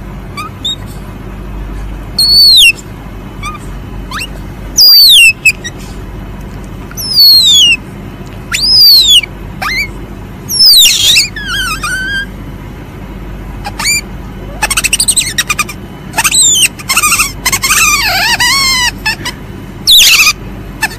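Civet (musang) calling: a series of loud, sharp, high-pitched squeals, each falling in pitch, coming every second or two and bunching into quick clusters near the middle and end, over a steady low hum.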